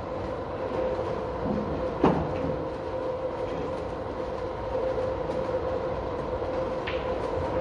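A steady mechanical hum with a noisy rumble under it, broken by one sharp knock about two seconds in and a fainter click near the end.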